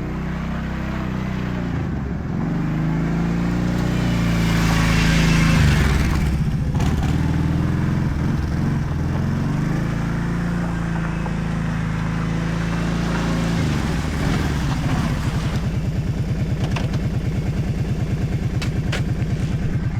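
Kawasaki Prairie 650 V-twin ATV engine, its muffler modified to be louder, driving past: it grows loudest about five to six seconds in, runs on, then from about fourteen seconds in drops to a steady pulsing idle.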